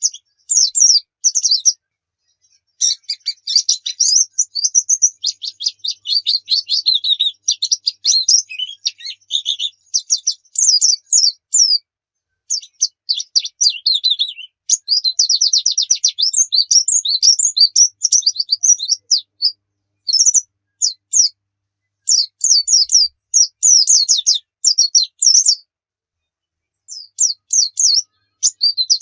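White-eye (pleci) singing a fast, high-pitched chattering song in phrases of rapid notes, broken by short pauses.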